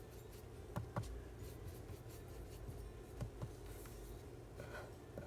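Paper and craft supplies being handled on a tabletop: faint rubbing and shuffling, with a few light clicks and taps, two close together about a second in and two more past three seconds.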